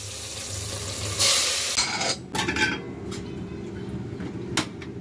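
Chopped tomatoes hissing as they sizzle in a hot pan. The hiss cuts off about two seconds in, followed by steel pots and lids clinking and a single sharp knock near the end.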